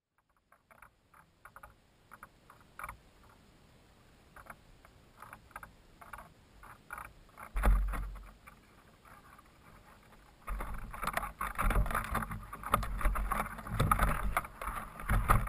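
Scattered faint knocks and clicks from a high-altitude balloon payload, heard through a GoPro camera's housing. About seven and a half seconds in there is a sudden loud thump as the latex balloon bursts. From about ten seconds on a continuous loud rumble and rattling follows as the payload falls after the burst.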